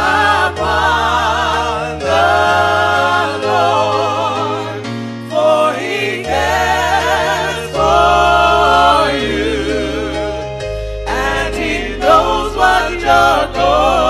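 Gospel music: sung vocals holding long notes with vibrato in phrases over a sustained low accompaniment.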